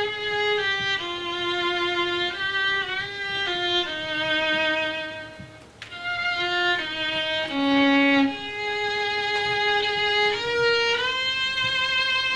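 Unaccompanied solo violin playing a slow melody, one bowed note at a time, each held for about half a second to a second, with a brief break about five and a half seconds in and a long held note near the end.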